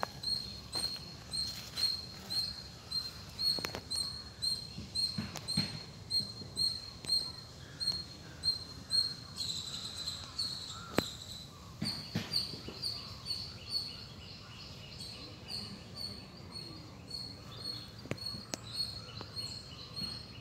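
A small bird repeating a short, high chirp about two to three times a second, with a few sharp clicks and soft rustles in the foreground.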